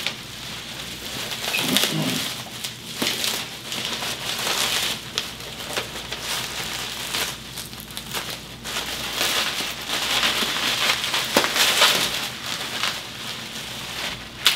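Clear plastic wrapping crinkling and rustling as it is pulled and torn off a rifle, with small crackles throughout.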